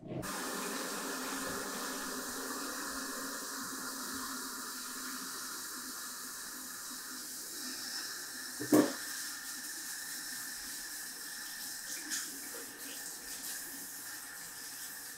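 Water running steadily from a tap, starting abruptly, with one sharp knock about nine seconds in.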